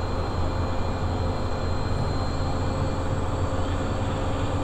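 Cessna Citation 501 cockpit with the jet's engines idling on the ground: a steady low drone with a faint high whine over it.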